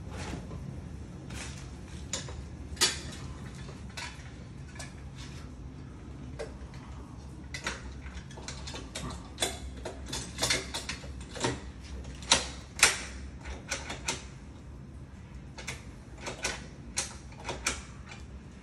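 Mortise lock mechanism being worked: a run of irregular sharp metallic clicks and clacks from the latch, bolt and key parts, over a low steady hum.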